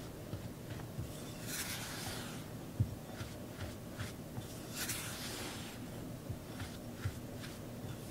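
Rubber spatula cutting and folding crumbly cookie dough of flour, almond flour and creamed butter in a glass bowl, working in the dry flour. There are soft scraping strokes, two longer scrapes, and light taps of the spatula against the glass, the sharpest about three seconds in.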